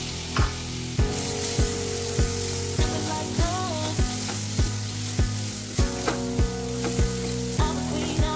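Chopped tomatoes sizzling in hot oil with fried onions in a pan as they are stirred with a spatula, the sizzle picking up about a second in. Background music with a steady beat plays over it.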